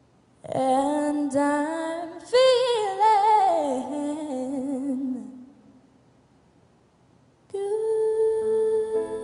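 A teenage girl singing a slow, drawn-out phrase unaccompanied, with wide vibrato. After a pause of about two seconds she comes back in on a long held note over piano.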